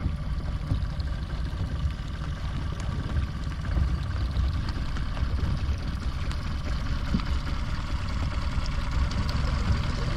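Small boat's outboard motor running at idle, a steady low rumble as the boat creeps slowly through shallow water.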